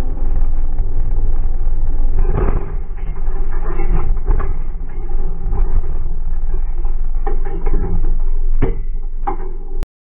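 Racing car cabin noise from an in-car camera: a loud, steady low rumble of engine and chassis with rattles and several sharp knocks. The sound cuts off abruptly near the end.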